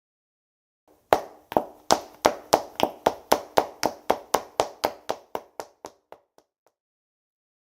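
Running footsteps in hard-soled dress shoes, a quick run of sharp heel-and-sole strikes at about three to four steps a second. They start about a second in and grow fainter until they stop.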